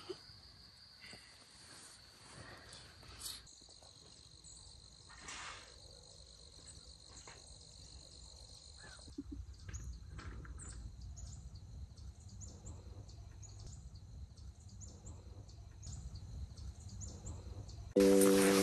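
Faint, steady chirping of crickets at night for the first half. Then scattered short bird chirps over a low rumble, and music comes in at the very end.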